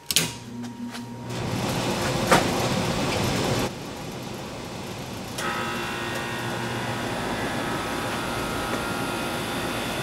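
R22 air-conditioning unit starting up: a click at switch-on, then the compressor and condenser fan come up to a steady running noise. It is loudest for the first few seconds, then settles, and a steady higher whine joins about five seconds in.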